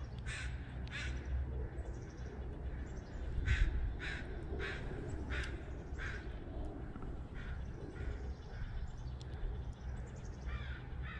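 A bird calling over and over in short calls, a dozen or so in irregular runs, over a low steady rumble.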